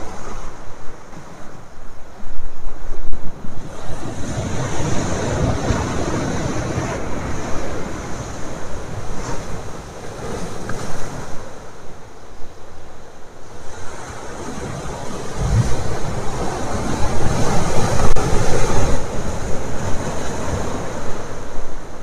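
Sea waves surging in and breaking over large boulders on a rocky shore, swelling and falling in several surges, with wind buffeting the microphone.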